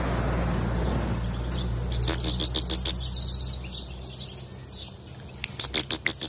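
European goldfinch singing: quick twittering phrases and rapid trills. A steady low rumble underlies the first few seconds.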